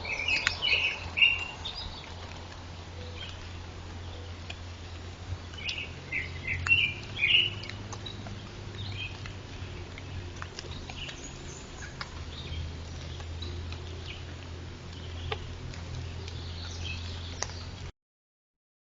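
Small birds chirping in woodland, short high calls in clusters at the start and again about six to seven seconds in, with scattered light ticks and a steady low hum underneath. The sound cuts off abruptly near the end.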